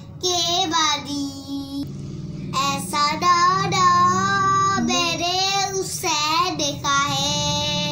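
A young boy singing a manqabat, an Urdu devotional praise song, solo and unaccompanied, in long drawn-out phrases with held, gliding notes and short breaks between lines.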